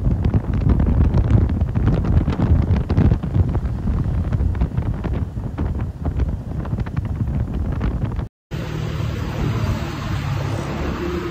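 Wind buffeting the microphone on a moving motorcycle, over a low rumble of engine and road noise. About eight seconds in, the sound cuts out for a moment and comes back steadier and less gusty, with a low motorcycle engine hum and traffic.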